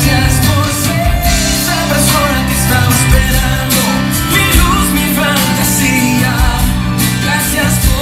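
Loud pop song with a lead singer over a band with a steady beat, played over a DJ's sound system for a dance.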